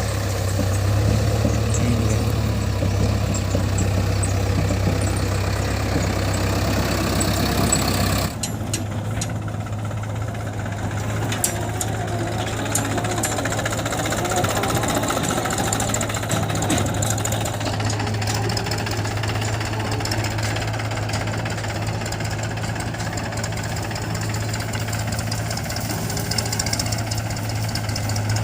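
Diesel engines of a backhoe loader and a farm tractor running with a steady low hum. The sound changes abruptly about eight seconds in, and a few light clicks follow.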